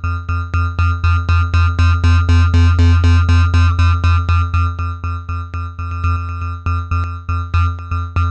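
Analog synthesizer note shaped by a CA3080 OTA voltage-controlled amplifier: the same pitch is retriggered about four times a second, each note with a sharp attack and a quick decay. The notes swell louder toward the middle and then get softer.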